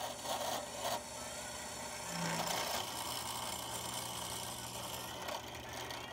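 Drill press running with its bit cutting through the steel of a farrier's rasp knife blank: a steady motor hum under the hiss of the cut.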